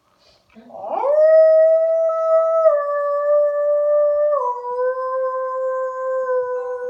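A single long howl. It swoops up in pitch about a second in, holds a steady tone, and drops to a lower pitch twice along the way.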